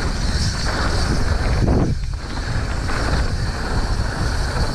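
Wind rushing and buffeting over the microphone of a mountain biker riding downhill, over a steady low rumble of the bike rolling on the trail.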